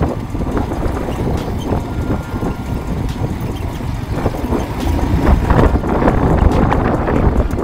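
Motorcycle riding over a rough, stony gravel track: engine rumble with wind buffeting the microphone and short knocks and rattles from the bumps, getting louder about five seconds in.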